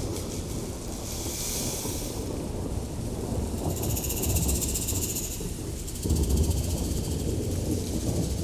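A low, steady rumble with airy hissing swells rising and fading about a second in and again about four seconds in. The rumble grows a little louder about six seconds in.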